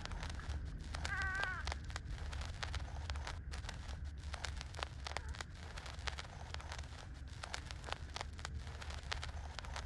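A newborn puppy, three days old, gives one short, wavering, high squeal about a second in. Irregular small clicks, the smacking of nursing puppies, run through the rest.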